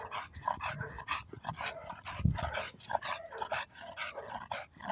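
A dog making many short, quick sounds in a row.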